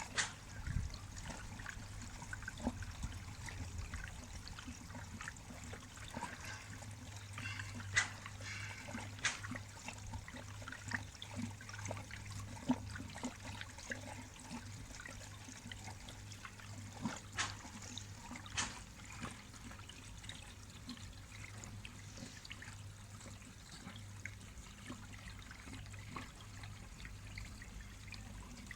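Water trickling steadily into a koi pond, with a low steady hum underneath and a few faint clicks.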